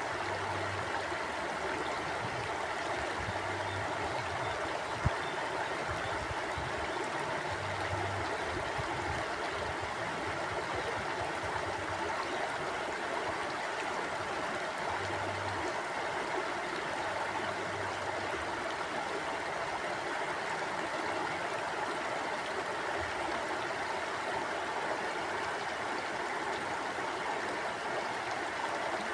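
Mountain river flowing, a steady rush of water that does not change. A single sharp click sounds about five seconds in.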